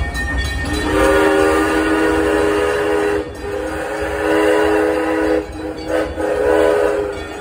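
Steam locomotive whistle blowing a chord of several notes: two long blasts, a short one and another long one, the pattern of a grade-crossing whistle signal. A low rumble from the moving train runs underneath.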